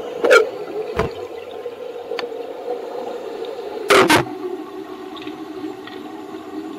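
Underwater recording of a scuba diver's bubbles being blown out: a short bubbling burst about a third of a second in and a louder double burst near the middle, over a steady hum.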